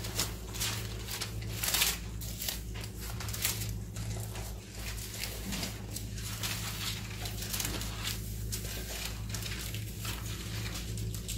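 Thin Bible pages being leafed through and turned by hand, a run of repeated papery rustles, over a steady low electrical hum.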